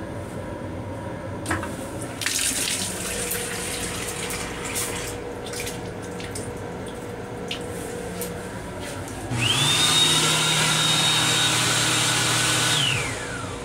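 Water runs from a faucet into a small sink basin. About nine seconds in, an electric hand dryer starts up with a high whine and a loud rush of air, runs steadily for about four seconds, then winds down with a falling whine.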